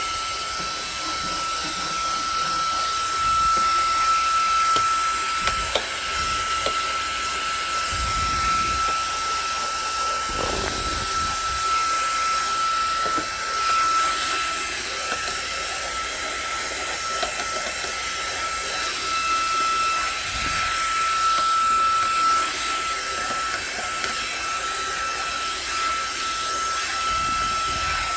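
Xiaomi mini cordless handheld vacuum cleaner running steadily: a constant high motor whine over rushing air, with a few light knocks of the nozzle against surfaces.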